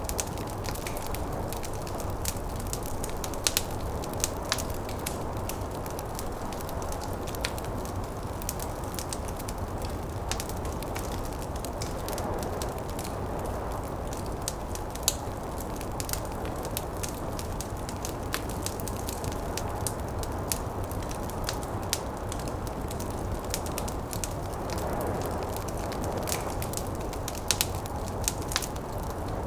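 Wood fire crackling, with irregular sharp pops and snaps, a few louder than the rest, over a steady rushing of snowstorm wind that swells gently a couple of times.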